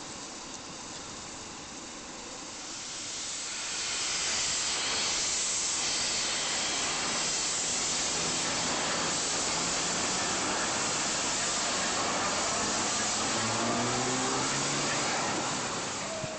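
Steam locomotive venting steam: a loud, steady hiss that swells up about three to four seconds in and holds for more than ten seconds.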